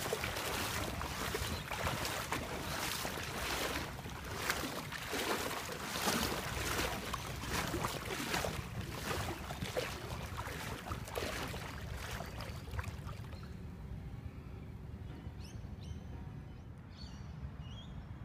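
Rushing outdoor noise of wind and small waves at the shoreline, swelling and fading about once a second. After about thirteen seconds it drops to a quieter, duller hush, with a few faint high chirps near the end.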